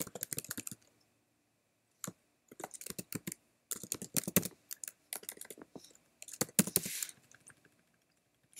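Computer keyboard keys clicking as someone types in several quick bursts, with short pauses of about a second between them.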